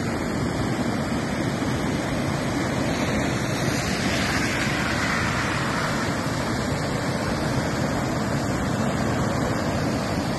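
A swollen river in flood, its muddy water rushing steadily past and over a road bridge. The rushing rises a little about four to six seconds in.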